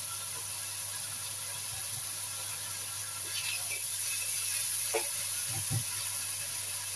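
Bitter melon and beef stir-frying in a wok with a steady sizzling hiss. A few short scrapes and taps of the spatula against the wok come in the second half.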